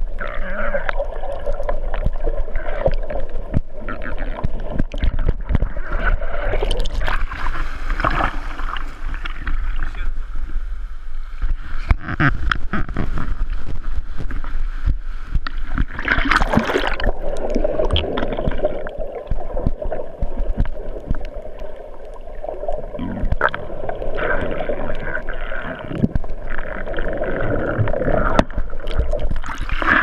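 Sea water churning and gurgling around a waterproof camera, first muffled underwater, then waves and swimmers splashing at the surface beside a ladder, with a big splash about sixteen seconds in.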